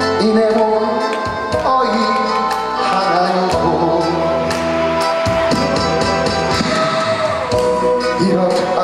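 Pop song backing track with drums and a steady beat, with a man singing over it into a handheld microphone; one long held note about midway.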